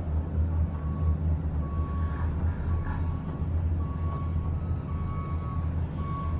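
Low steady rumble of a Disney Skyliner gondola cabin riding its cable, heard from inside the cabin, with a faint high tone that comes and goes about once a second.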